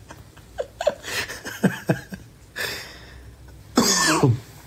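A man laughing in short breathy bursts and coughing, with the loudest, harshest burst near the end sliding down in pitch.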